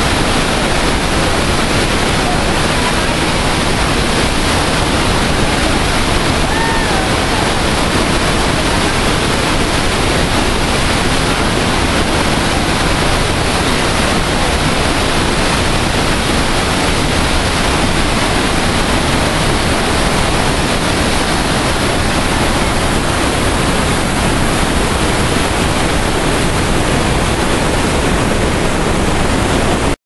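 The Rhine Falls, a large waterfall, rushing at close range: a loud, steady wash of falling water that does not let up.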